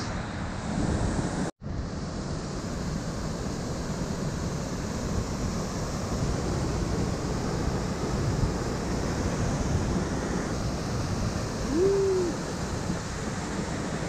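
Steady rush of white water pouring down the stepped cascades of a mountain river, with some wind on the microphone. The sound cuts out for an instant about a second and a half in, and a short rising-and-falling tone is heard near the end.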